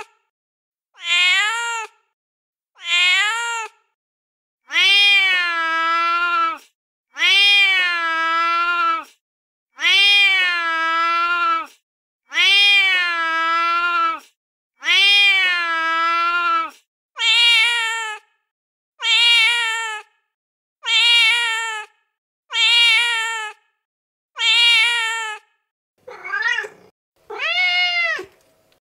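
Recorded domestic cat meows played one after another from a cat-sounds app, each cut off cleanly with dead silence between. There are about fourteen calls, each rising then falling in pitch. A few short meows open the run, five long drawn-out meows of about two seconds each come in the middle, and shorter ones follow toward the end.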